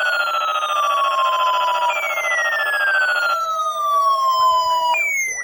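Several NOAA weather alert radios sounding their alarms for the weekly test at once: a siren-like sweep that falls in pitch and restarts about every three seconds, over a buzzy steady alarm tone that stops about two-thirds of the way through.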